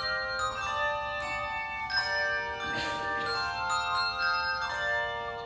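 Handbell choir playing: several tuned handbells struck together in chords, each chord ringing on and overlapping the next, with a new chord struck every second or so.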